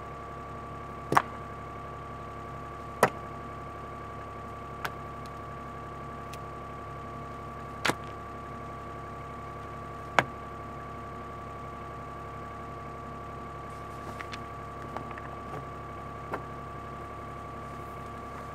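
Excavator running steadily with a constant high whine over its engine drone. Sharp knocks cut through it now and then: four loud ones in the first ten seconds and a few fainter ones later.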